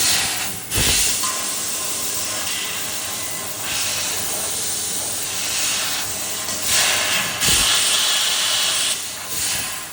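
Fiber laser tube cutting machine with a Raytools cutting head cutting metal tube: a steady hiss of assist gas and sparks that swells louder for stretches. There is a short low thump about a second in and another about three-quarters of the way through.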